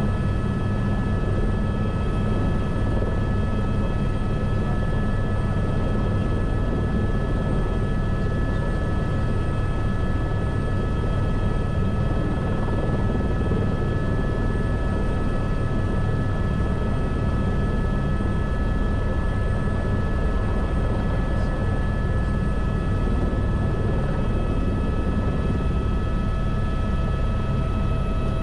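Airbus H125 (AS350 B3e Esquilo) helicopter running steadily: its turboshaft turbine and rotor give a constant low rumble with a steady whine of several high tones over it.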